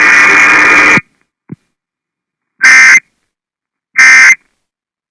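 A second of loud hissing noise cuts off, then come two short identical bursts of warbling digital data tones about 1.3 s apart: the EAS SAME end-of-message (NNNN) header closing the weather alert.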